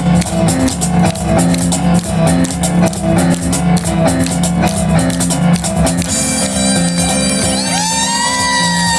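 Live instrumental music from a piano-and-cajon duo, with fast percussive strikes over a repeating low piano figure. About six seconds in, bagpipes come in with a steady drone, and near the end their chanter starts a melody.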